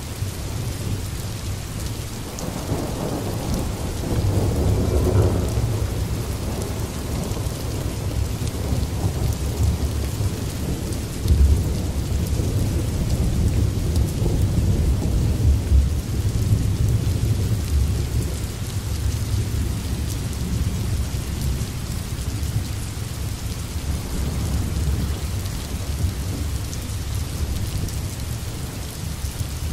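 Steady rain with low rolling thunder, one rumble swelling a few seconds in and a sharper clap about eleven seconds in.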